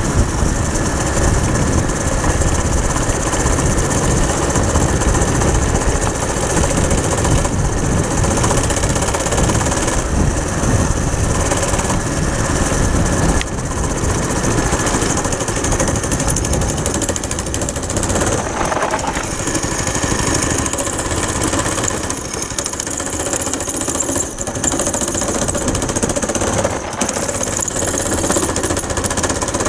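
Homemade go-kart's small four-stroke engine running under way, a loud, steady rattling drone heard from the driver's seat, dipping slightly a couple of times as the throttle eases.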